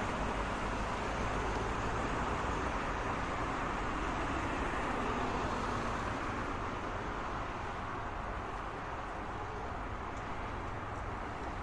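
Steady road traffic noise: a continuous wash of passing cars with a low rumble underneath, easing off slightly in the second half.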